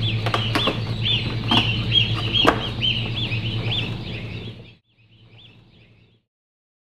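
Day-old waterfowl chicks peeping in a cardboard chick box, a steady run of short rising-and-falling peeps, with sharp cardboard knocks as the box lid is folded shut and a steady low hum beneath. The sound cuts off sharply about three-quarters of the way through, with a brief fainter tail of peeps before silence.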